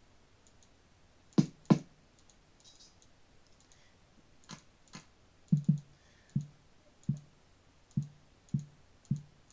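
Image-Line Drumaxx physical-modelling drum synth auditioned one pad at a time: two sharp hits close together about a second and a half in, then a string of short drum hits, many with a brief low pitched ring, coming about one every second from the middle on. Faint mouse clicks fall between the hits.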